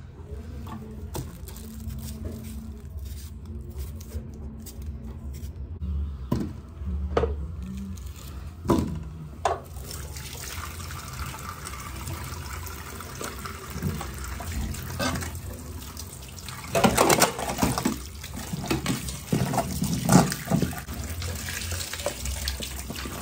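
A few short knife clicks while potatoes are peeled. From about ten seconds in, a kitchen tap runs into a stainless steel sink over a colander of potatoes and carrots, with louder splashing twice as hands rub the vegetables clean.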